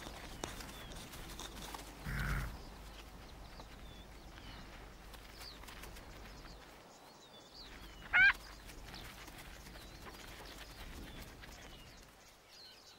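Quiet open-grassland ambience with faint bird chirps. About eight seconds in, one short, loud, high call cuts through, wavering in pitch.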